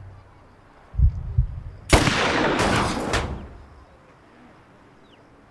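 Pistol gunfire: a few low thuds about a second in, then a sudden loud shot near two seconds in whose blast lasts over a second before fading.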